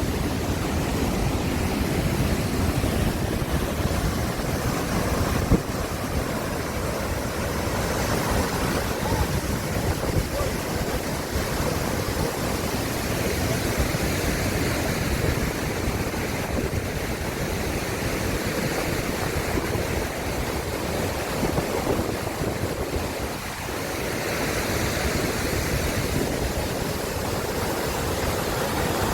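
Steady rush of the River Nile's flowing water, with wind buffeting the microphone.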